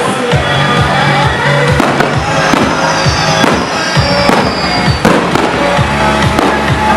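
Loud music with a steady pounding beat from a flatbed truck's electronic fireworks show, mixed with fireworks bangs. A whistle falls slowly in pitch about two seconds in.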